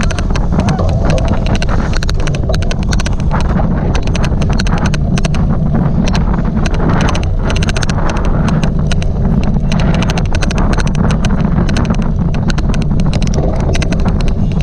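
Rapid, irregular clicking over heavy wind rumble on the microphone while riding a cyclocross bike; the odd clicking sound runs through the recording.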